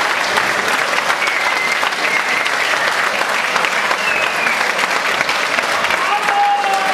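Audience applauding steadily, a dense even clapping, with a few brief high whistles over it. A held tone comes in near the end.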